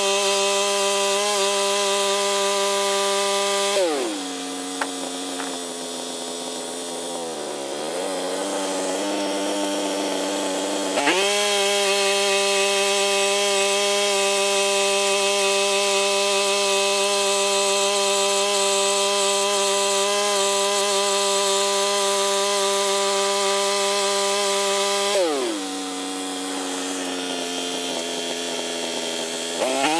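Norwood MX34 portable bandsaw mill's gas engine running at high speed, throttled down about four seconds in, brought back up about eleven seconds in, then throttled down again near the end and back up as it closes.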